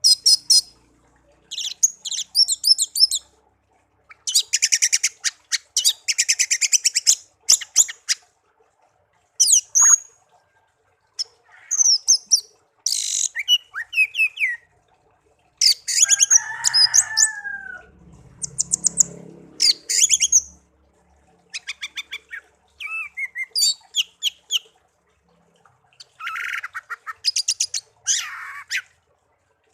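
Pet songbird singing: repeated phrases of rapid, high, clicking trills and whistled notes, broken by short pauses, with a lower gliding call and some harsher notes partway through.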